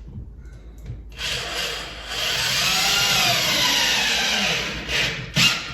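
Power drill driving a lag bolt through a TV wall-mount bracket into a wall stud. It runs for about four seconds, its pitch sagging and recovering under load, with a short final burst near the end as the bolt seats.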